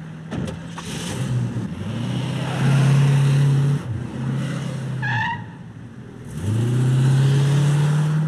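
Ambulance van's engine pulling away and accelerating hard, its note climbing, dropping between gears, then climbing again near the end. A sharp knock about half a second in as the driver's door shuts.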